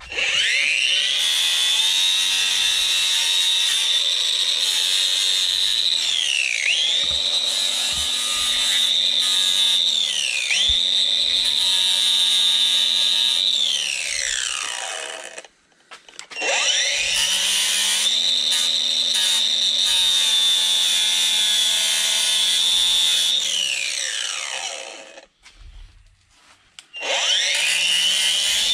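Angle grinder running at full speed with a high whine. Its pitch sags twice as it is pressed into the work: it is grinding a lip off a sway-bar part clamped in a vise. It winds down and is spun back up twice.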